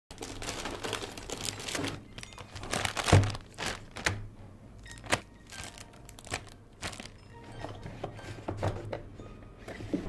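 Plastic bags crinkling and a cardboard motherboard box being handled, with bursts of crackling rustle and several sharp knocks. The loudest knock comes about three seconds in.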